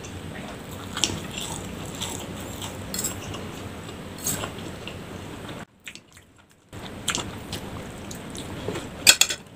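A person chewing and slurping fried instant noodles and cilor, close to the microphone, with metal cutlery clicking against the plate. The loudest is a quick run of clicks near the end. There is a short break of near silence a little past the middle.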